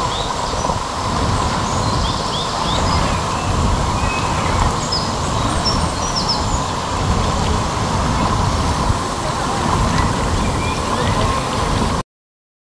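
Waterfall pouring into a pool, a steady rushing noise, with a few short high bird chirps over it. The sound stops abruptly near the end.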